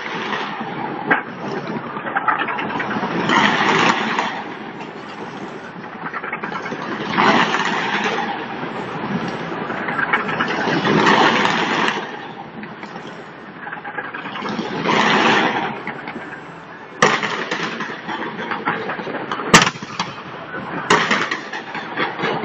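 Fireworks going off: swells of crackling hiss every few seconds, with a few sharp bangs in the second half.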